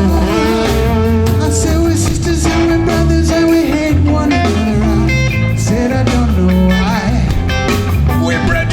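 Live hardcore punk band playing, with electric guitar over bass and drums.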